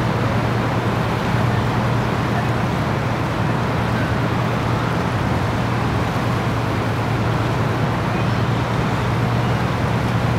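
Boat engine running steadily under way: a constant low drone with an even hiss over it.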